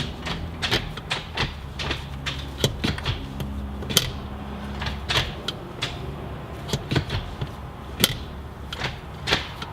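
JHM solid short-throw shifter in a B9 Audi A4 with manual transmission being moved through the gears by hand, giving an irregular run of sharp clicks and clunks as it goes into and out of gear. The two loudest knocks come about four and eight seconds in.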